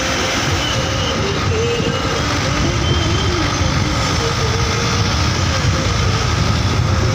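A moving road vehicle heard on board: steady engine and road noise with a heavy low rumble, unbroken throughout.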